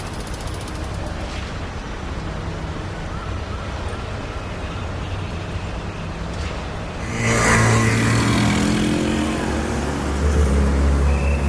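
Steady low vehicle rumble that gets suddenly louder about seven seconds in, with a rush of noise and a rising engine pitch.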